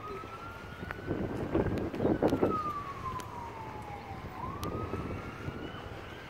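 Emergency vehicle siren wailing, its pitch rising and falling slowly, one full cycle and the start of the next. There is a burst of louder low rushing noise about one and a half to two and a half seconds in.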